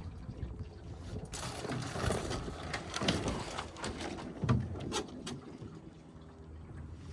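Water splashing and sloshing against a small sailboat's hull under sail, with a few sharp splashes in the middle, over a steady low rumble of wind on the microphone.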